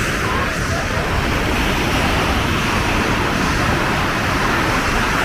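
Steady, even rush of surf washing up the beach, with no single wave or event standing out.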